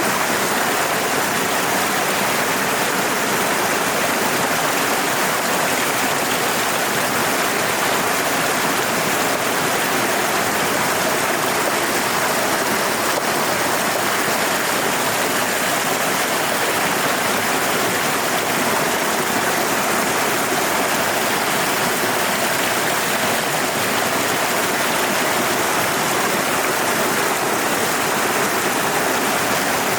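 Steady rushing of a river flowing.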